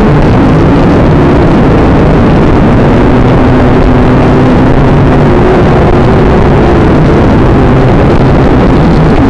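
Small radio-controlled toy aircraft's motors and propellers running in flight, heard close up from the onboard camera: a steady, loud buzz whose pitch wavers slightly, mixed with rushing air on the microphone.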